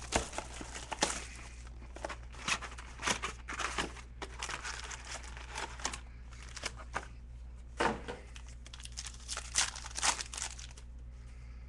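Trading-card packs being torn open by hand, the wrappers crinkling and tearing in irregular bursts, with cards handled and shuffled.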